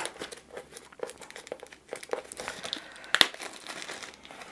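Plastic shrink-wrap film crinkling and crackling as it is torn and peeled off a cardboard box, in irregular crackles with one sharper snap a little after three seconds in.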